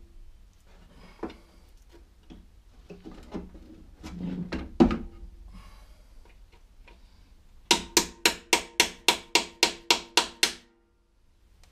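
Handling knocks against a steel lawnmower deck, then a quick, even run of about a dozen sharp metallic clicks, four or five a second, each ringing briefly. They come from a hand tool being worked on an engine-mounting bolt.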